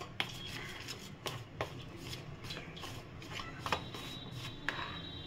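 Rice flour and water being stirred into a thin paste in a bowl: irregular wet scraping with a few sharp taps against the bowl.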